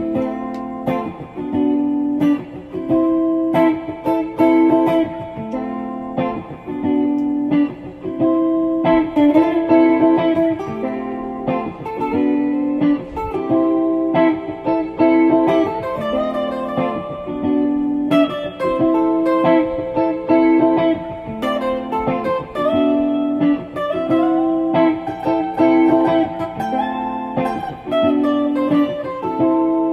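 Guitar music: plucked notes in a repeating figure.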